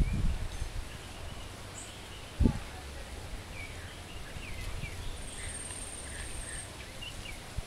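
Outdoor ambience: small birds chirping faintly over a low rumble, with a single thump about two and a half seconds in and a short high, buzzing trill that lasts about a second and a half near the end.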